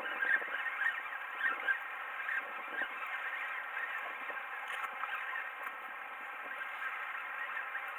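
Shimano Nasci 5000XG spinning reel being cranked to bring in a hooked sea bass: a steady scraping whine, with short squeaks in the first few seconds.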